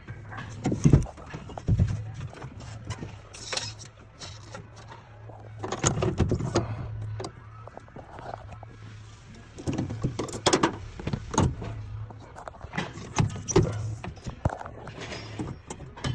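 Hand work on plastic push rivets and latch cables inside a van's sliding door: irregular clicks, knocks and rattles of tools and parts, over a steady low hum.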